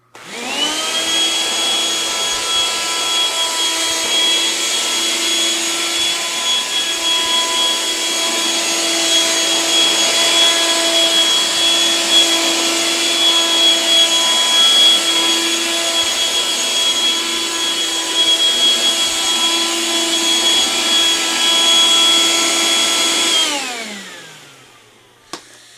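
Eureka Boss upright vacuum cleaner switched on, its motor spinning up to a steady high whine that runs for about twenty seconds, then switched off and winding down.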